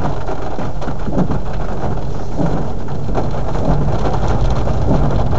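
Rain pattering on a car's roof and windshield, heard from inside the moving car, over a steady low rumble of engine and road noise.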